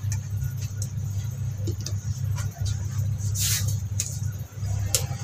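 Light clicks and knocks of chopped ingredients being dropped by hand into a plastic blender jug, with a brief rustle about three and a half seconds in, over a steady low hum.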